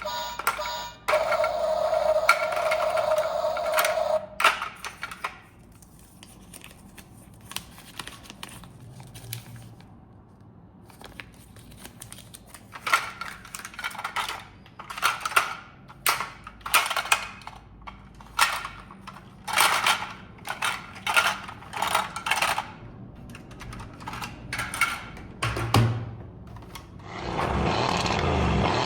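A steady pitched electronic tone for the first few seconds, then a long run of short clicks and clattering knocks from small hard objects being handled.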